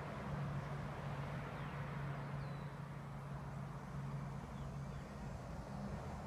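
Steady outdoor background noise with a low, steady hum that fades near the end, and a couple of faint high chirps.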